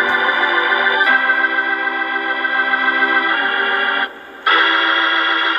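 Organ playing loud, held chords: the chord changes about a second in and again after about three seconds, then breaks off briefly just past four seconds before a new chord is held.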